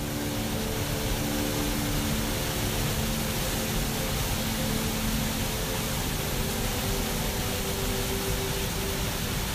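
Whitewater river rapids rushing steadily, with soft sustained music chords faintly underneath.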